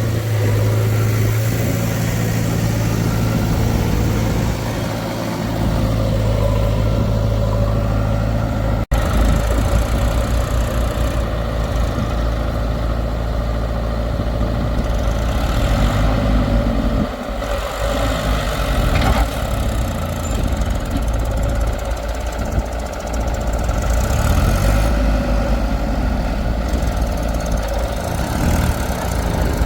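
Diesel engine of heavy machinery running, with a steady low drone; after a sudden cut about nine seconds in, a rougher engine sound continues, rising and falling in pitch a few times.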